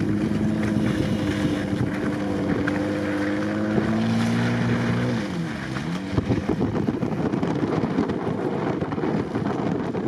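Jeep Wrangler Rubicon's engine held at steady high revs as it ploughs through deep snow, the revs sagging and picking back up about five and a half seconds in. Blizzard wind buffets the microphone.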